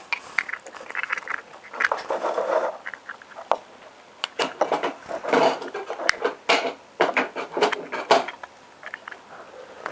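Irregular clicks, taps and scraping rustles from hands handling a round metal lift push button close to the microphone.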